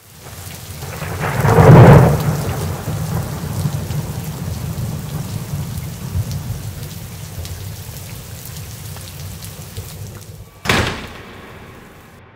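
Thunderstorm: steady rain, with a long roll of thunder swelling to its loudest about two seconds in, and a sudden sharp thunderclap near the end that dies away.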